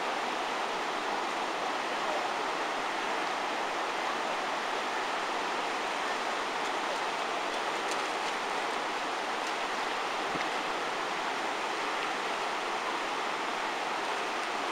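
Steady rush of breaking surf and sea water washing among the rocks, an even hiss at a constant level.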